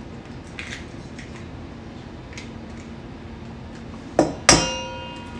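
Eggs being cracked by hand: faint taps and shell crackles, then a knock about four seconds in and a sharp knock against the mixing bowl that leaves the bowl ringing for about a second.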